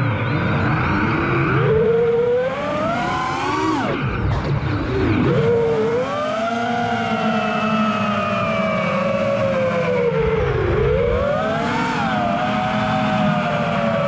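FPV racing quadcopter's brushless motors and propellers whining, the pitch swooping up and down with the throttle and dropping sharply about four seconds in and again near eleven seconds, over a low rumble.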